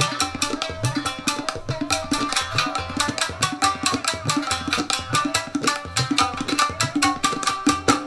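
Shamisen and tabla playing together: a fast run of plucked shamisen notes struck with the plectrum, over rapid tabla strokes, with low bass-drum strokes that bend in pitch.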